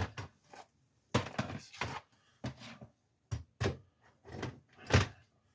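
Irregular knocks and scrapes from a walking stick and its stainless-steel spike tip being handled while the tip is fitted on.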